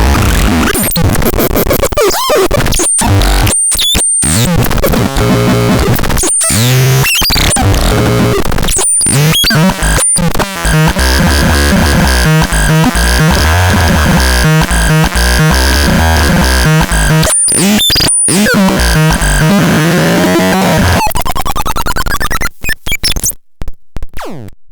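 Synthesizer making harsh, noisy electronic sounds: sweeping pitch glides over a pulsing low bass pattern, with several abrupt cut-outs to silence. Near the end the sound stutters and drops away.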